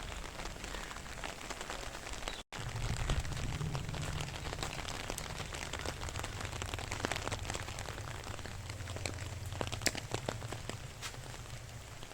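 Steady rain falling, with many scattered drops tapping close by. A brief dropout comes about two and a half seconds in, and a low rumble runs under the rain after it.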